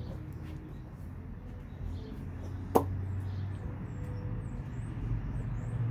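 A low steady hum with one sharp click a little under three seconds in, and faint high chirps in the second half.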